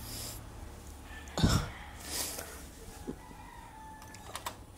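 A rooster crowing in the background, with a short loud burst of noise about a second and a half in.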